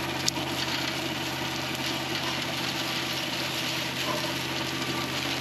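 John Deere 1025R compact tractor's three-cylinder diesel engine running under load, driving an offset flail mower that is chewing through blackberry vines. A steady, even drone.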